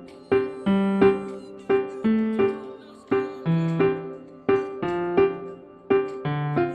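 Background music: a piano playing a gentle, evenly paced melody of struck notes that ring and fade.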